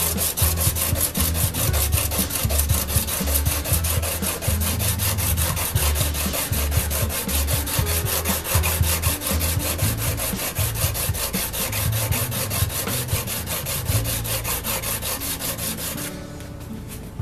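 Brazed tungsten carbide lathe tool bit rubbed back and forth by hand on a diamond sharpening plate: a fast, even rhythm of gritty scraping strokes that stops about a second before the end. The diamond is cutting, mostly flattening the steel shank under the carbide tip.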